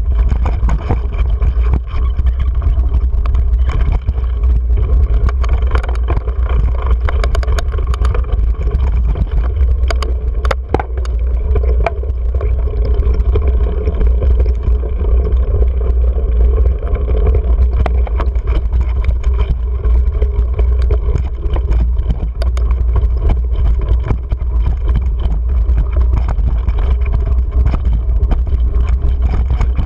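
Wind buffeting an action camera's microphone on a moving mountain bike, a steady low rumble, with scattered clicks and rattles as the bike runs over the rough dirt and rocks of the trail.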